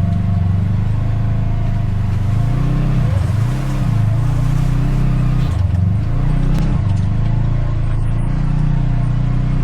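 Side-by-side UTV engine running under load on a rocky climb, its revs rising and falling several times as the throttle is worked.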